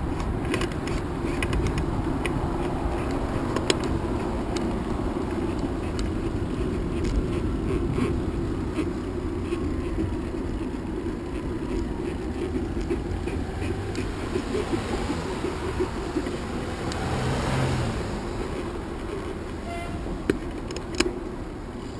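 Road traffic on a multi-lane street: a steady rumble of passing cars, with one vehicle passing close about three-quarters of the way through. Small clicks and ticks come and go over it.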